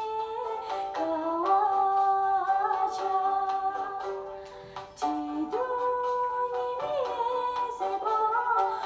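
A woman humming a slow wordless melody into a handheld microphone, held notes stepping up and down in pitch, with a brief dip in the middle before the tune picks up again.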